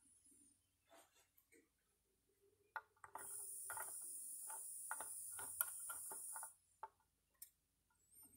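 Soldering iron tip tapping and clicking against the solder joints of a circuit board while cold joints are reflowed, with a steady high hiss for about three seconds in the middle.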